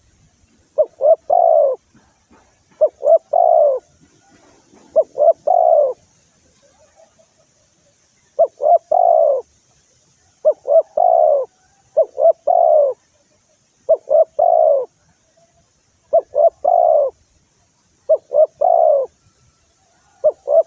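Spotted dove (tekukur) cooing, repeating the same phrase about every two seconds: two short notes and then a longer, drawn-out coo, about ten times with a short pause partway through. It is the kind of call played as a lure to provoke rival doves.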